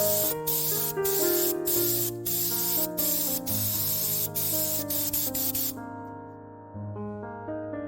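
Spray gun hissing in short bursts with brief pauses, then stopping near the end, over background music with piano-like notes.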